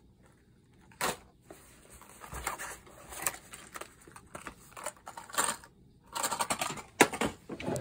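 Clear plastic lure boxes being handled and set into a soft lure bag: a sharp click about a second in, then bouts of rustling and clattering, with another sharp click near the end.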